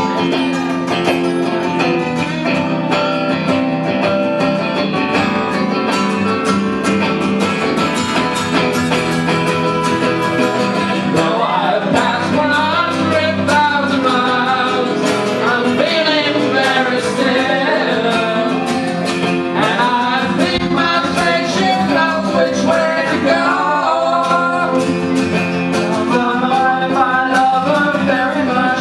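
Live band playing: strummed acoustic guitar with electric guitar and bass guitar. Instrumental for about the first ten seconds, then a voice sings over the band.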